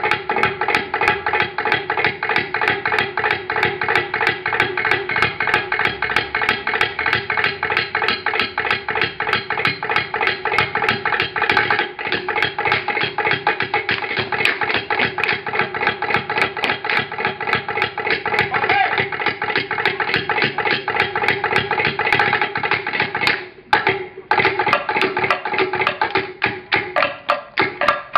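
Samoan sasa seated group dance: many performers clapping and slapping in a fast, even rhythm over group voices. The rhythm breaks off briefly about 23 seconds in, then picks up again.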